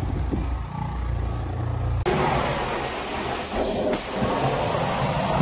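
A low motor hum from a small rotary carpet scrubber on the stairs, then a sudden change to the loud, even rushing hiss of a carpet-extraction wand with its vacuum pulling, which drops out briefly twice.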